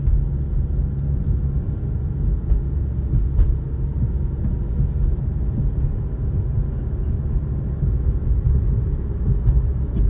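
Steady low rumble of tyre and engine noise inside a moving car's cabin, driving on a wet, snowy road.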